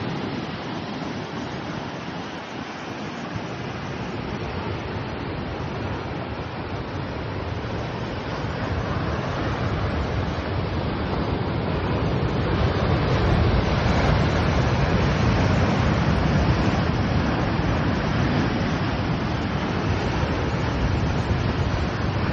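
Steady rush of sea surf with wind on the microphone, growing louder about halfway through.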